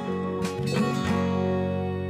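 Background music: an acoustic guitar strummed twice, then its chords left ringing and slowly fading.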